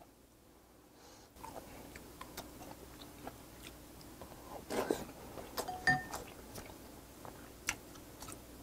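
Close-miked mouth sounds of a person chewing a spoonful of rice and soft brined herring: small wet clicks and smacks, a few louder ones about five and six seconds in.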